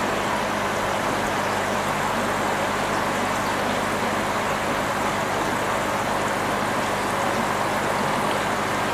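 Aquarium equipment running: a steady rush of moving water with a low, constant hum underneath.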